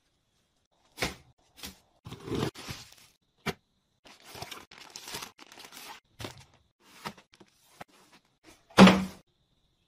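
Groceries and containers being handled while a refrigerator is stocked: crinkling plastic packaging and light taps and thunks as items are set down, with one louder thunk that rings briefly about nine seconds in.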